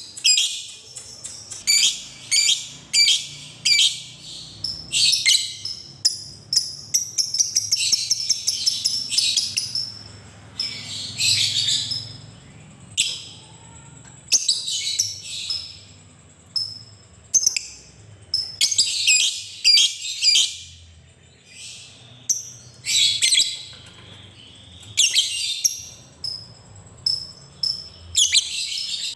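Lovebird chattering in bursts of rapid, high-pitched trilled notes (the long "ngekek" chatter), each burst lasting from under a second to a few seconds, with the longest run about seven to ten seconds in.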